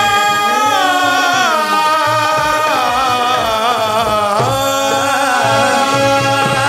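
Qawwali ensemble playing a melodic interlude: harmonium melody with some wavering, gliding notes over a steady dholak drum beat.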